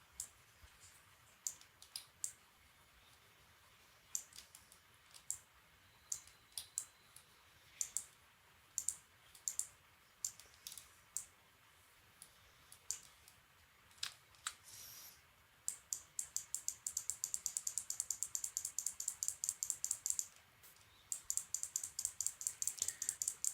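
Computer mouse clicking at a desk: scattered single clicks, then long runs of rapid, even ticking at about ten a second, like a scroll wheel being spun.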